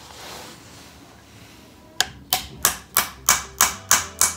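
Hammer tapping a metal tool set over the shaft of a washing machine motor, driving the new plastic motor coupler half down flush onto the shaft. The sharp taps begin about two seconds in and come evenly, about three a second.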